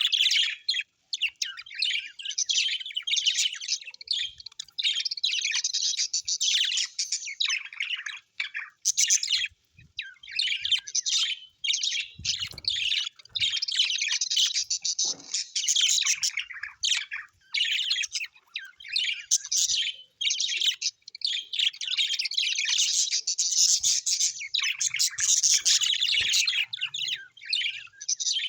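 Several birds chirping and chattering almost without pause in quick, high-pitched notes.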